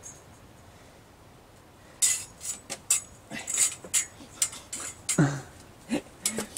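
A steel bandsaw blade rattling and clinking in irregular bursts as it is flexed and twisted by hand to turn it inside out, starting about two seconds in. A couple of short grunts of effort come near the end.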